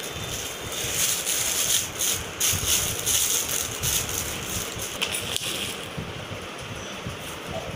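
Clear plastic wrap crinkling and rustling in quick irregular bursts as it is pulled off a roll of kitchen paper towel by hand, dying down near the end.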